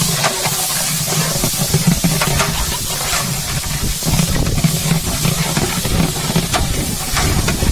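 A large batch of sliced onions sizzling in hot oil in a big aluminium pot, with a long iron spatula scraping and knocking against the pot as it stirs.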